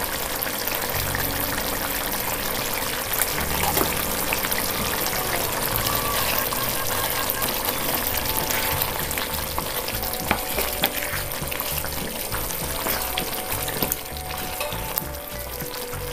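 Capsicum masala curry sizzling steadily in a nonstick pan as a wooden spatula stirs it, with small scrapes and taps against the pan.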